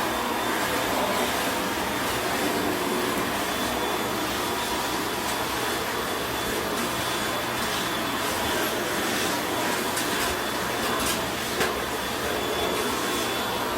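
Vacuum cleaner running steadily: an even whooshing hiss with a faint high whine over it, and a few light clicks in the second half.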